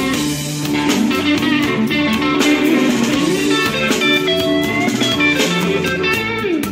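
Background music: a blues-rock instrumental led by an electric guitar, with some notes bent in pitch.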